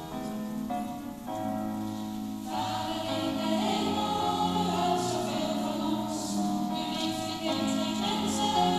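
Instrumental introduction of a church hymn, then about two and a half seconds in the congregation starts singing with the accompaniment.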